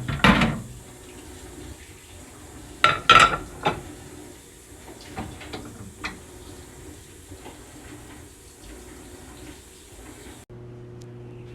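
Hard clattering and knocking, loudest at the start and again about three seconds in, like the microwave's turntable parts being handled, then a few faint clicks. About ten seconds in, the microwave switches on and runs with a steady, even hum.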